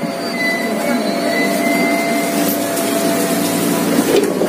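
Steady humming whine of a KRL electric commuter train's onboard equipment, heard inside the car by the doors at a station stop. A short rush of noise comes near the end.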